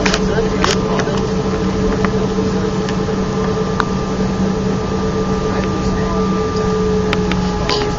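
Airbus A319 cabin noise in flight: a steady drone from the engines and airflow, with a low hum and a higher steady tone running under it. A few light clicks sound here and there.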